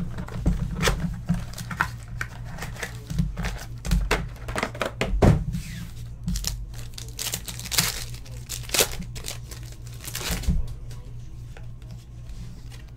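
A trading-card box and pack being opened by hand: irregular crinkling and tearing of the wrapper, with small clicks and rustles of cardboard and cards.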